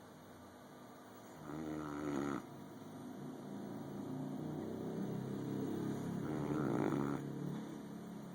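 Boxer dog snoring in her sleep: a short snore about a second and a half in, then a longer, louder one that builds and stops about seven seconds in.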